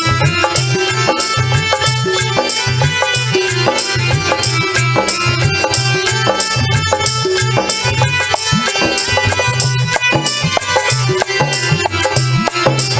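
Instrumental devotional bhajan music: a steady hand-drum beat under sustained melodic instrument tones, with no singing.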